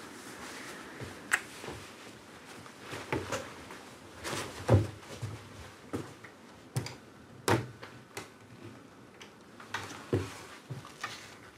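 Soft knocks, clicks and rustles of someone handling and leaning on an old panelled wooden door, scattered through the stretch. The loudest knock comes a little before five seconds in.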